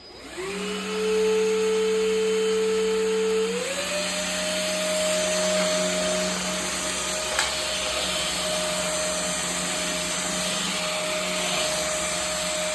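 Cordless stick vacuum cleaner switched on, its motor whining up to speed within a second. About three and a half seconds in, the whine steps up to a higher pitch and then runs steadily, with one brief click partway through.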